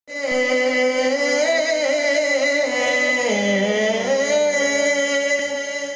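A man's voice singing a naat through a microphone and PA system, holding long sustained notes that slide to a new pitch about three seconds in.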